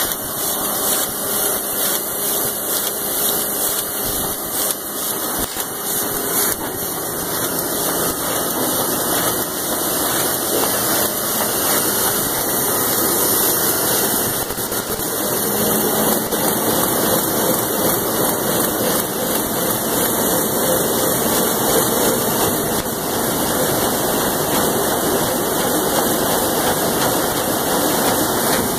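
Sakurai Oliver 472 ED II four-colour sheetfed offset press running, a steady mechanical din with a hiss of air throughout.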